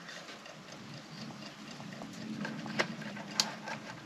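Light clicks and clinks of a camping lantern's metal handle and carabiner hook as the lantern is hung up and handled, with two sharper clicks near the end, over a faint steady low hum.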